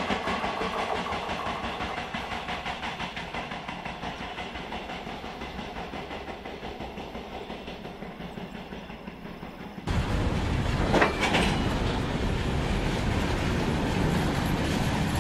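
Wheels of a double-stack container freight train clattering over the rail joints as its tail passes and recedes, the sound fading over about ten seconds. About ten seconds in it cuts abruptly to a louder, closer freight train of open wagons clattering past, with a brief high squeal about a second later.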